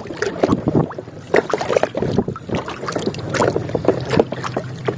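Water splashing and sloshing in quick, irregular bursts as a muddy toy vehicle is washed by hand.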